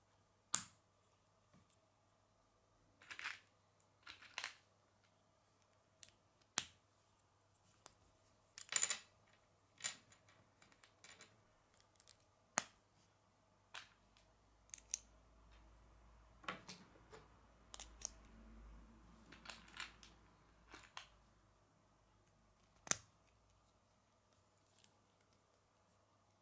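Plastic K'nex pieces clicking and snapping together as connectors are fitted onto a rod. The sharp clicks come irregularly, a second or two apart, with a few short rattles, and there is a faint low rumble through the middle.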